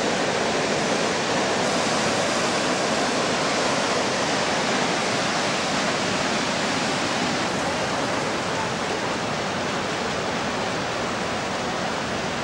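Mountain torrent rushing, a loud steady wash of water noise that holds even throughout.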